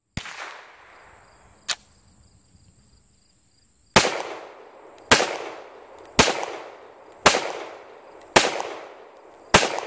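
CZ Shadow 2 9mm pistol being fired: one shot right at the start and a short crack about 1.7 s in, then six shots at a steady pace, a little over a second apart, each followed by a brief echo.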